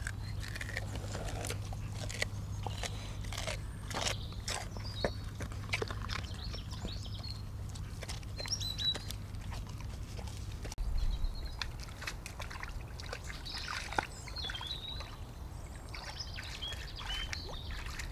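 A dog chewing at a scrap of leek, with scattered sharp clicks and rustles, while birds chirp now and then. Later there is light sloshing as the dog wades in shallow water.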